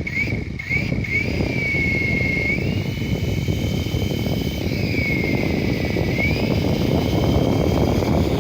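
Toy remote-control helicopter's small electric motor whining with a steady rotor buzz. After a couple of quick upward chirps, the whine rises in pitch a few seconds in, holds, drops back, then rises again.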